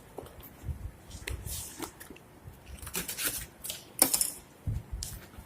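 Phone box packaging being cut open and handled: irregular clicks, scrapes and rustles, with one sharp click about four seconds in.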